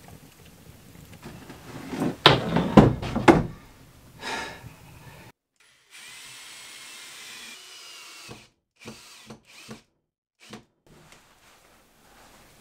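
Cordless drill/driver running for about a second and a half, then a few short bursts, as it drives into the wall. Before it there is a cluster of loud knocks and pops, beside a wood stove fire crackling.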